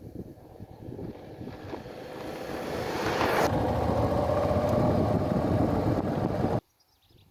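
Suzuki V-Strom 650 motorcycle under way, its V-twin engine running under wind rushing over the microphone. It grows louder over the first few seconds, holds steady, then cuts off abruptly about a second before the end.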